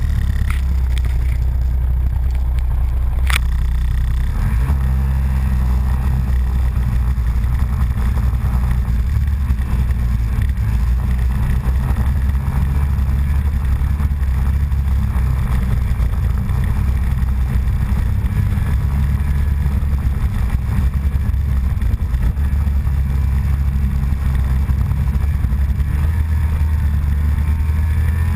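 Snowmobile engine running steadily as the machine rides along, a low drone, with one sharp click about three seconds in.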